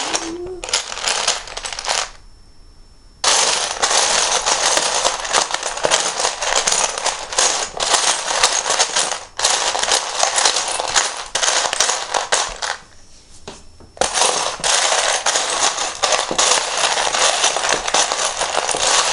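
Loose plastic Lego bricks clattering as a hand rummages through a pile of pieces, a dense rattle of many small clicks that stops briefly twice.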